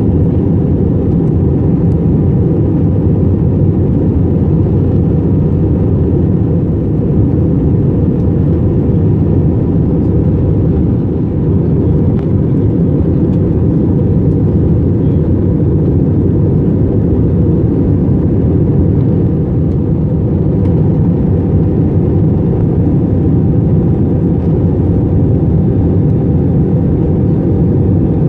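Steady low rumble of an Airbus A321's jet engines and airflow heard inside the cabin from a window seat over the wing during the descent, with a faint steady whine of engine tones above the rumble.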